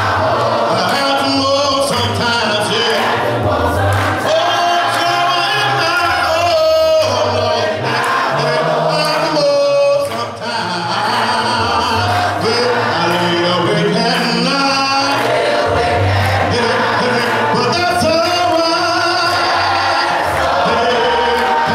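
A man leading a gospel song through a microphone, with the congregation singing along a cappella.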